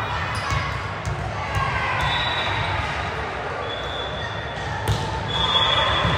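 Indoor court sounds during volleyball play: sneakers squeaking on the gym floor several times, a few sharp ball hits, the clearest about five seconds in, and a steady murmur of players' and spectators' voices in the hall.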